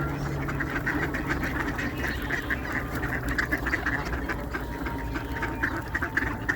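A flock of ducks quacking busily at feeding time, many short quacks overlapping in a steady chatter, over a low steady rumble.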